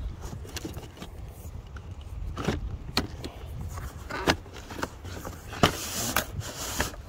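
Handling noise as a string trimmer's shaft and plastic head are slid out of a cardboard box: scattered knocks and scrapes, with a longer cardboard rustle about six seconds in, over a low steady rumble.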